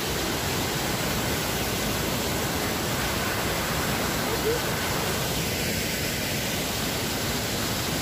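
Rhine Falls, a large river waterfall, rushing as a steady, even noise of falling and churning water.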